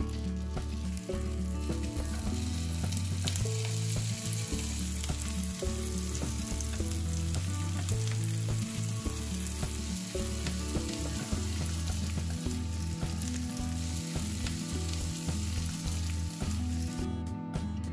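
Food sizzling in a hot frying pan, a dense steady crackle that cuts off near the end, with light background music underneath.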